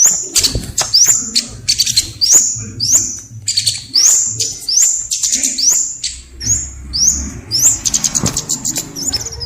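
A songbird singing loudly: a fast series of high upslurred whistled notes, about two a second, broken by short buzzy trills.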